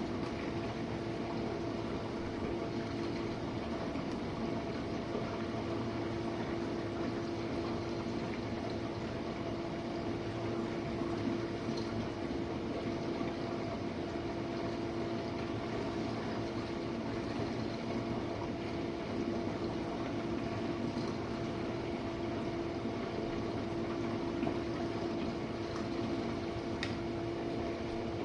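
Jenn-Air dishwasher running a wash cycle: the steady hum of its pump motor under the hiss and splash of water spraying inside the tub.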